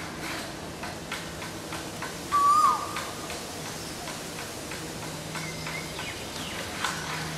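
Male Asian koel giving a single loud whistled call note, held briefly and then sliding down in pitch.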